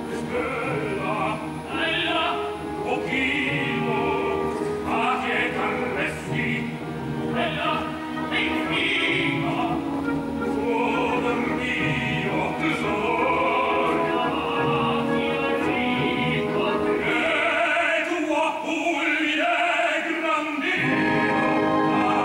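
Operatic tenor and baritone singing a duet with orchestral accompaniment.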